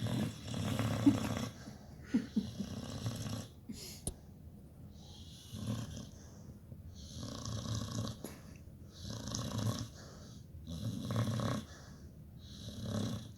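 Pit bull snoring in its sleep, a rough snore on each breath about every one and a half to two seconds. A couple of short, sharp sounds break in during the first few seconds.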